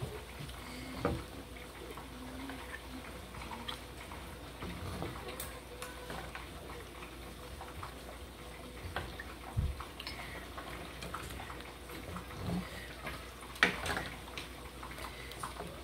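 Serving spoon scraping and knocking against the pot and serving dish as thick, stretchy ogbono soup is ladled across, with scattered light clinks, a dull thump about halfway through and a couple of louder knocks near the end.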